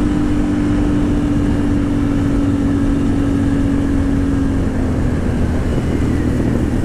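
Can-Am Outlander XMR 1000's V-twin engine running at a steady cruise, its pitch dropping slightly about five seconds in, over a constant rush of tyre and gravel noise.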